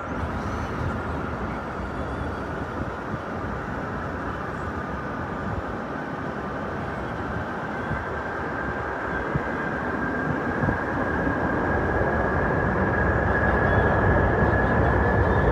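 Airbus A380-861 jet engines (four Engine Alliance GP7200 turbofans) running at departure thrust: a steady deep rumble under a high whine that slowly rises in pitch, getting louder over the last few seconds.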